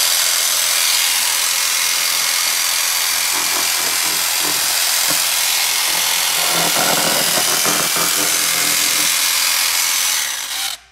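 Electric jigsaw running continuously as it cuts a round hole through the side of a tool case, then cuts off suddenly near the end.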